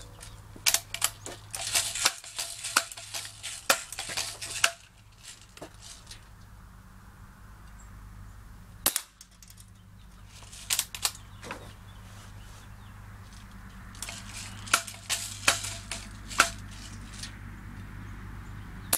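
Remington Airmaster 77 multi-pump air rifle being handled and fired: bursts of sharp clicks and snaps from pumping, cocking and shooting, with a quieter stretch in the middle and a single sharp crack around nine seconds in.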